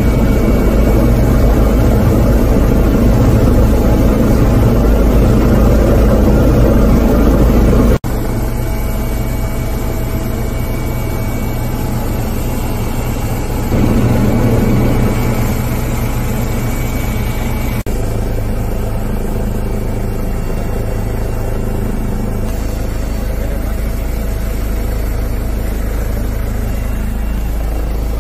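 Steady drone of a police helicopter's engine and rotors, heard from inside the cabin. The sound breaks off abruptly about eight seconds in and again near eighteen seconds in, each time coming back slightly quieter.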